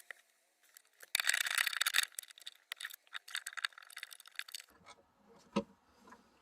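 Ratchet wrench clicking rapidly in runs as 10 mm bolts holding a trunk latch solenoid are backed out, followed by a single sharp click.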